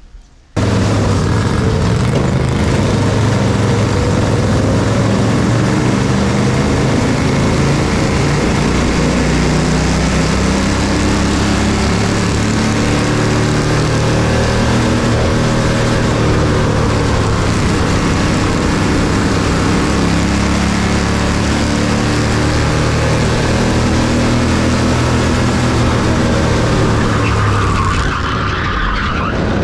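Bandolero race car's single-cylinder Briggs & Stratton engine running hard, heard loud and close, its pitch rising and falling slowly as it goes round the track. It cuts in suddenly about half a second in and eases slightly near the end.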